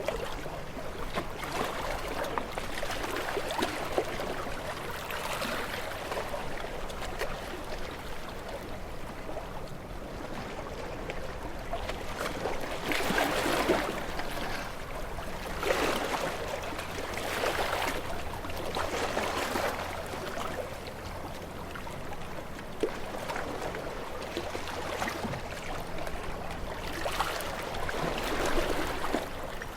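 Ocean waves washing against rocks: a continuous rush of water that swells into a louder surge every few seconds, the biggest surges about halfway through.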